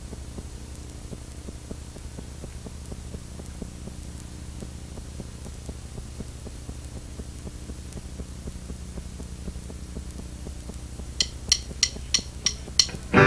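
Steady electrical hum from the band's guitar amplifiers idling on stage. Near the end, six sharp clicks at about three a second: a drummer's stick count-in to the next song.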